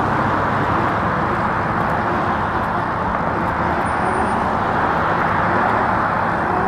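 Steady, continuous road noise: an even rushing hiss with a faint low hum underneath.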